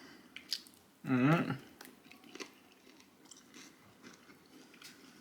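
A person chewing a sticky glazed chicken wing with soft wet mouth clicks and smacks, and a brief vocal sound about a second in.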